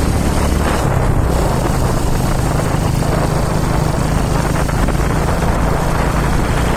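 Motorcycle engine running steadily while riding, a low hum under a loud rush of wind on the microphone.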